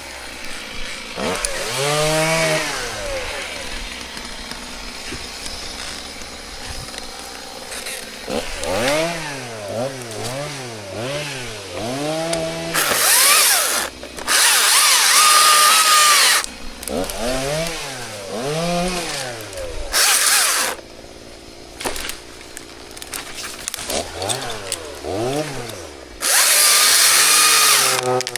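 Chainsaw engine revving up and down again and again, broken by short loud bouts of cutting into wood: two back to back in the middle, a brief one a few seconds later, and a longer one near the end.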